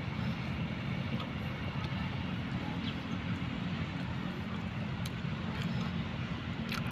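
Steady low engine rumble with a humming drone, unbroken throughout, with a few faint light clicks.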